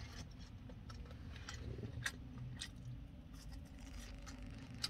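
Faint, scattered clicks and rustles of someone handling fast food and its paper wrapper and chewing, over a low steady hum inside a parked car.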